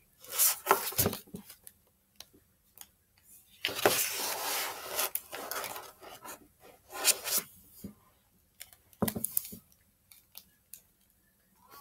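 Pages of a hardcover picture book being turned and the book handled: paper rustling and a few light knocks in several short bursts, the longest about four seconds in.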